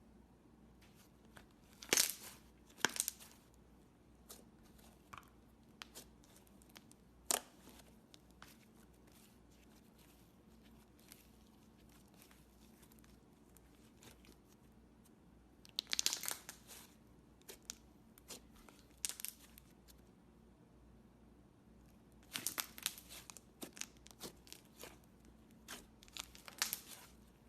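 Slime being handled and pressed by hand, giving sharp clicks and short crackly bursts at irregular intervals: a pair about two seconds in, a cluster in the middle, and a busier run near the end.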